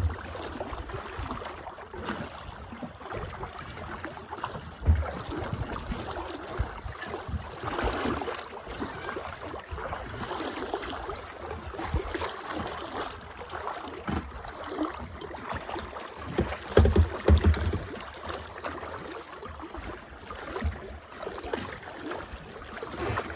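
Water sloshing and splashing around a sea kayak as it is paddled, with low thumps about five seconds in and again near seventeen seconds.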